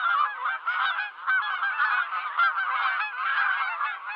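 A large flock of migrating geese calling in flight overhead: many overlapping honks in a continuous chorus.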